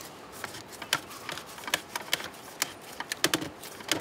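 Irregular sharp clicks and taps from a plastic PVC heater union nut being turned on by hand, with a quick cluster of clicks near the end.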